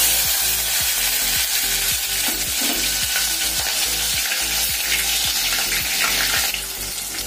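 Chopped onions sizzling loudly in hot oil with cumin and fenugreek seeds in a steel pot, the sizzle easing off near the end.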